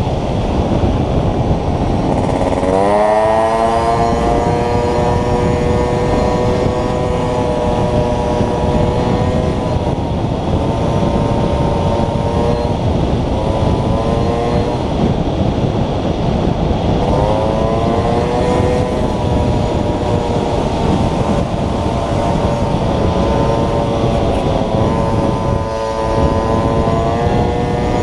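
Small moped engine running under way. It revs up with a sharply rising pitch about three seconds in and again around seventeen seconds, and holds a fairly steady speed in between.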